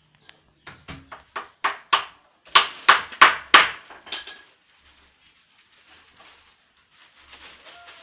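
Hammer blows driving nails into wooden boards: about a dozen sharp strikes in two quick runs that get louder, each with a short metallic ring, stopping a little after halfway through.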